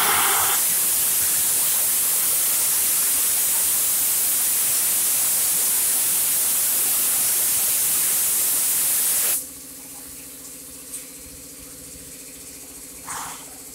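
Compressed-air spray gun hissing steadily as it sprays engine coating into an engine bay, cutting off suddenly about nine seconds in. A quieter low steady hum remains after it stops.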